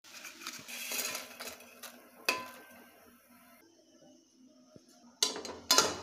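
Stainless-steel pot and ladle clattering and clinking together, with one sharp ringing clink about two seconds in and two louder metal clanks near the end.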